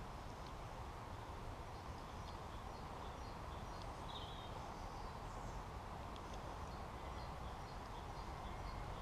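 Woodland ambience: small birds chirping faintly and intermittently over a steady low background rumble.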